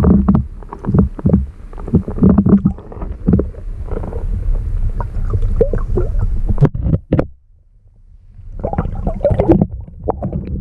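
Muffled water sloshing and gurgling heard from underwater, with irregular knocks, around a hooked arctic grayling being played at the surface. There is a brief lull about seven and a half seconds in.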